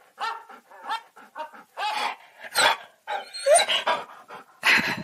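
Siberian husky "talking": a string of about six short whining, yowling calls that slide up and down in pitch, with a louder, breathier one near the end.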